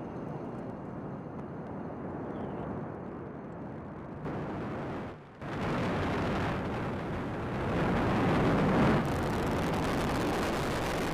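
Falcon 9 rocket's nine Merlin first-stage engines thundering at liftoff and climb-out, a dense rumbling noise. It drops out briefly about five seconds in, then comes back louder and holds steady.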